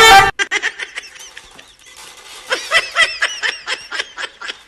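A person laughing in short repeated bursts, picking up about two and a half seconds in, after a short loud pitched sound at the very start.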